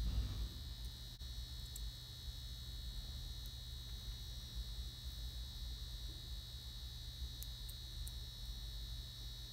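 Steady low electrical hum with a faint steady high whine, and a few faint ticks near the end.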